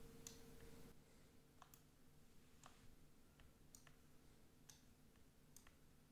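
Near silence with faint clicks, about one a second, from someone working a computer's mouse or keyboard while editing in Blender. A faint steady hum stops about a second in.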